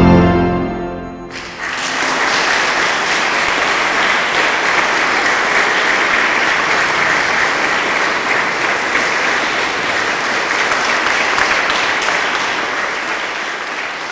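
The final chord of a 1928 Cavaillé-Coll-Convers pipe organ dies away, and about a second and a half in an audience breaks into steady applause that tapers near the end.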